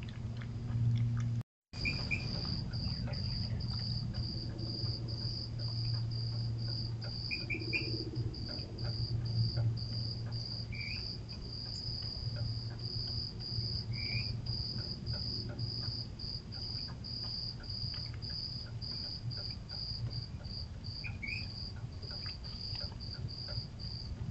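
A cricket chirping steadily at night, about two chirps a second, over a steady low hum. The sound cuts out for an instant about one and a half seconds in.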